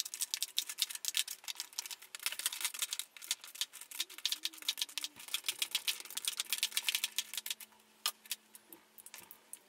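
Lipstick tubes clicking and tapping against one another and against the plastic slots of a grid organizer as they are picked up and set down: a rapid run of small clicks that pauses briefly near the end.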